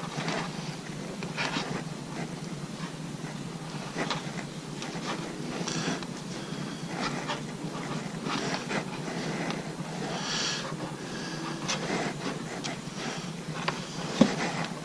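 Jacket fabric rubbing against a chest-mounted camera's microphone, making irregular swishing and rustling as the arms move during close hand work.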